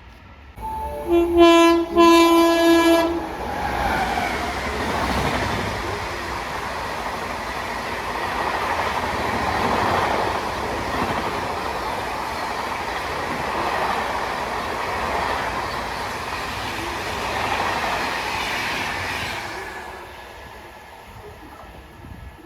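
Train horn sounding in two blasts, then a train passing with a steady rumble and wheel clatter for about fifteen seconds, fading away near the end.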